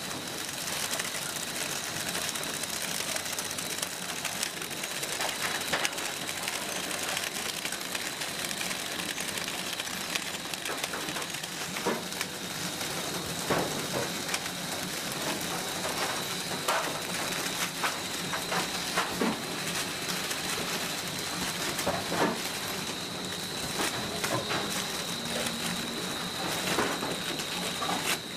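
Food-tray film-wrapping machinery running: a steady hiss with a thin high whine, and irregular mechanical clicks and knocks.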